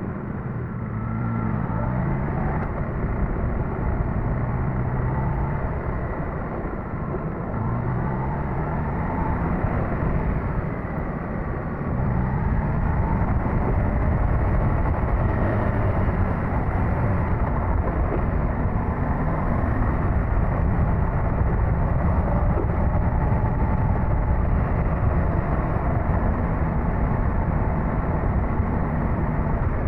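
Suzuki GSX-S1000GT inline-four engine running under way, its revs rising and falling for the first dozen seconds. About twelve seconds in it gets louder and steadier, with wind and road noise over the engine.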